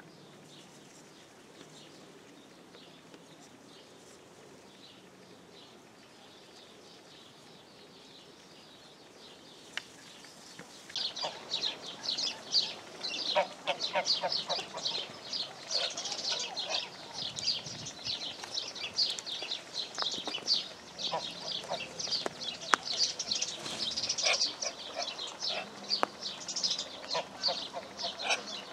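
Faint scattered bird chirps at first. About a third of the way in, a dense, busy chorus of many small birds chirping and twittering takes over, with some lower calls mixed in.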